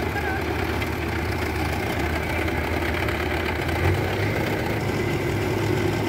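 Swaraj 843 XM tractor's three-cylinder diesel engine running steadily while it pulls a loaded sand trolley.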